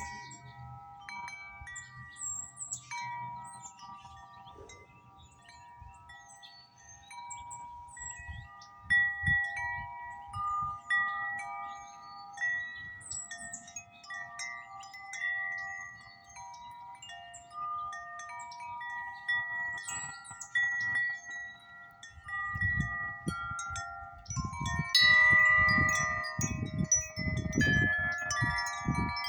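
Wind chime ringing over and over in gusty wind, several notes struck in an irregular jangle. Wind gusts rumble on the microphone in the last few seconds, when the chime is struck hardest.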